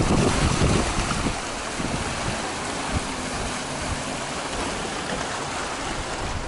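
Small sea waves washing and foaming among shoreline rocks, a steady hiss of moving water. Wind buffets the microphone with a low rumble for about the first second, then eases.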